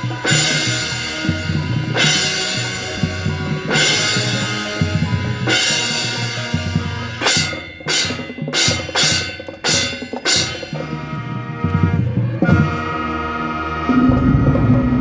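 Marching band with its drumline and front-ensemble percussion playing at full volume, with heavy drum and cymbal accents. About halfway through comes a quick string of six or seven sharp accented hits, then the band settles into held chords, and a deep low tone swells in near the end.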